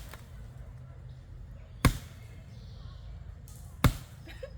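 Two sharp chopping blows of a blade into a small tree trunk, about two seconds apart, part of a steady series of strikes felling the tree.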